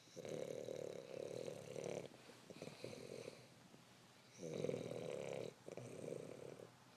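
Pet terrier snoring in its sleep: a run of rough, rattling snores, each about a second long, with short pauses between.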